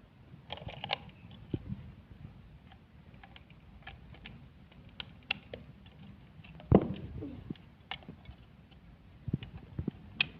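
Scattered light clicks and taps from handling, with one louder knock about seven seconds in.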